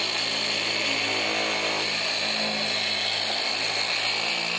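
Hand-held electric orbital polisher with a foam pad running steadily on a car's painted door, a constant motor whir with a hiss over it, buffing the paint.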